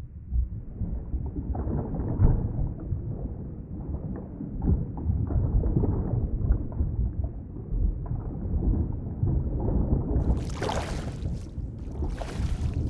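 Underwater ambience: a muffled, low rumbling and gurgling wash of water with small knocks. About ten seconds in, a brighter rushing water noise comes in, in several surges.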